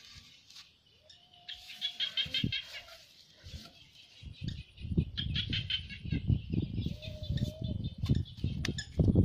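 Hands scraping and packing soil around a bamboo tube in a dug hole: a run of dull knocks and rustles that starts about halfway and builds toward the end. Birds chirp in quick trills in the background, and a rooster crows twice.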